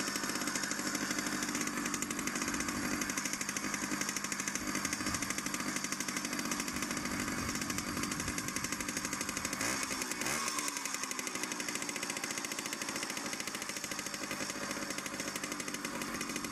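Jawa 50 Pionýr moped's 50 cc single-cylinder two-stroke engine idling on a minibike carburettor, the rapid pulsing holding an even speed. The idle is steady and not chaotic, the revs staying the same throughout.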